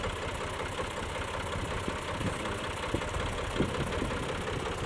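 John Deere farm tractor's diesel engine idling steadily.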